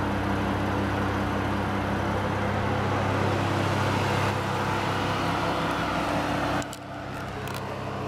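Lexus IS sedan's engine idling steadily. Near the end it drops off suddenly and carries on quieter.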